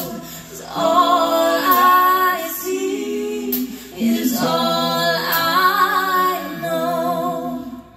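Woman singing a slow melody live into a microphone, her voice standing alone with vibrato on the held notes; the singing stops just before the end.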